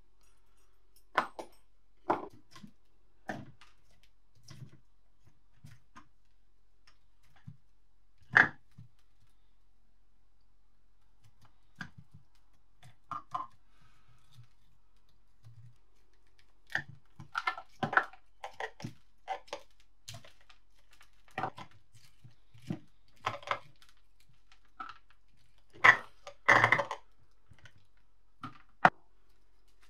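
A steel dental pick and fingers picking and breaking crusts of dried soil and rust off a buried, corroded iron lump, with pieces dropping into a plastic tub. The result is irregular sharp clicks, cracks and scrapes with pauses between, busiest about two-thirds of the way through and again near the end.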